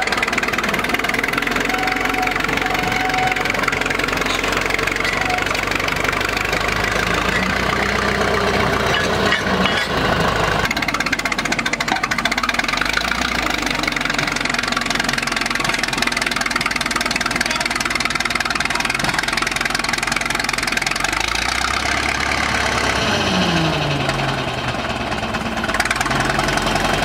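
Small vintage crawler bulldozer's engine running steadily as the machine moves across grass. A little past twenty seconds in, the engine note drops to a lower, steady speed.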